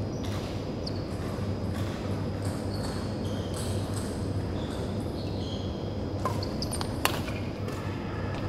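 Badminton rally on a wooden sports hall floor: court shoes squeaking again and again, and two sharp racket-on-shuttlecock hits a little under a second apart, about six and seven seconds in, over a steady low hum.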